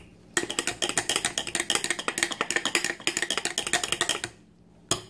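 A metal wire utensil working through mashed sweet potatoes in a ceramic casserole dish, clicking and scraping rapidly against the dish as the mixture is mashed and stirred; the clicking stops about four seconds in.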